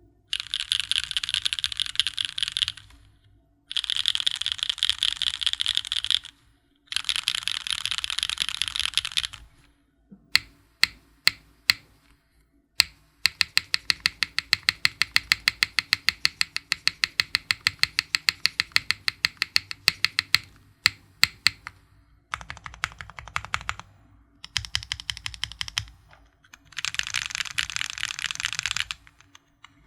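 Custom mechanical keyboard with Gateron Raw switches in an aluminium plate being typed on: fast bursts of typing a couple of seconds long with short pauses between them. Partway through come a few single key strokes, then a steady run of evenly spaced presses lasting about seven seconds, before the fast typing resumes.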